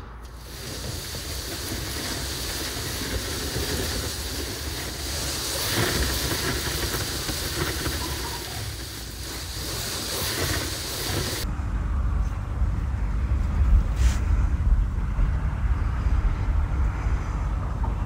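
Loose-fill insulation being blown out of an insulation-blower hose: a steady rushing hiss of air carrying the fill. About eleven seconds in the hiss drops out and a lower rumbling noise takes over, with a single knock a few seconds later.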